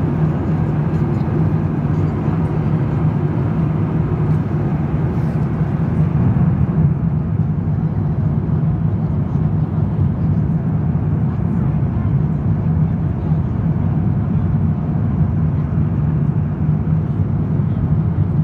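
Airliner cabin noise in cruise: the steady low drone of the jet engines and rushing air, heard from inside the cabin.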